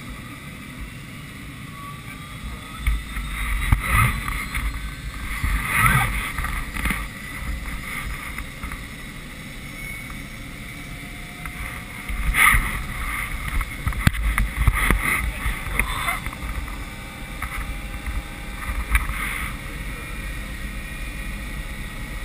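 Helicopter starting up, heard from inside the cabin: the turbine whine slowly rises in pitch as the main rotor spins up. The engine rumble is broken by irregular gusty buffeting.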